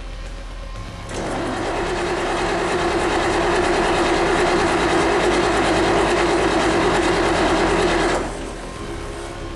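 Starter motor cranking the Mercedes-Benz OM442 V8 diesel: a steady, rough mechanical run that starts about a second in, holds for about seven seconds and stops without the engine catching.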